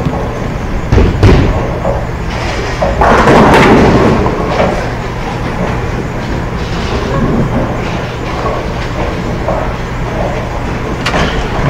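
Bowling alley sounds: a sharp thud about a second in, then a loud crash of pins starting about three seconds in, over the alley's steady rumble and hum.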